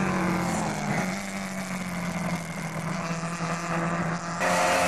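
Historic saloon race cars' engines droning steadily as they lap the circuit, one even low engine note over a haze of noise. About four and a half seconds in, the sound suddenly gets louder and brighter.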